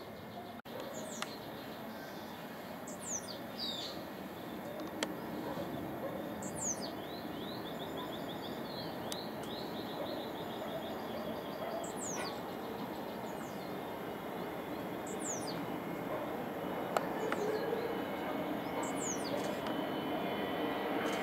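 Bird calls: short, high whistles that sweep downward, repeating every three to four seconds, with a quick rattling trill about eight seconds in. Underneath, the steady rush of a distant jet airliner's engines grows slowly louder toward the end.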